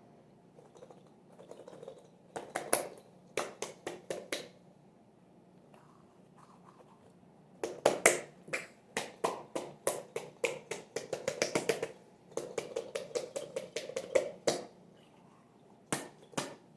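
Fidget toys clicking and snapping as they are worked in the hands, in quick runs of several clicks a second with pauses between, and a couple of last clicks near the end.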